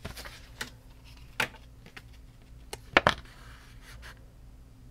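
Paper envelopes and cards being handled on a table: a few light taps and clicks, the sharpest pair about three seconds in, then a brief rustle.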